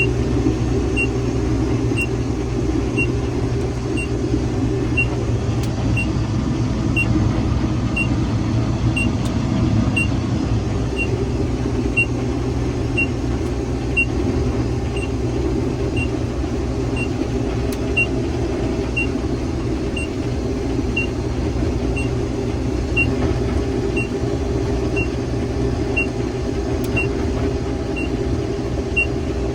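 Combine engine running steadily, with a short high electronic beep repeating about once a second.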